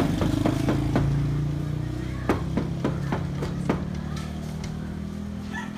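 A fist knocks on a sheet-metal gate in two runs of sharp raps, a few at the start and about six more from about two seconds in. Under the knocks runs the steady drone of an engine.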